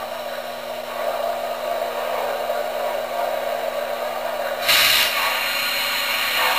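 M.T.H. 384E Blue Comet model steam locomotive's sound system playing a steady steam hiss over a low electrical hum while standing, with a sudden louder burst of hiss about two-thirds of the way through.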